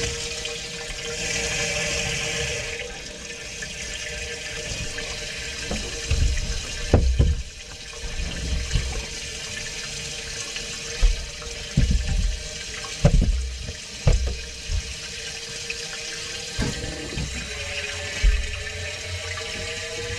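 Water running steadily from a supply line into a clogged kitchen sink drain, filling the blocked line to test it for leaks and find how far out the blockage is. A steady hiss with a pitched tone under it, and several dull knocks.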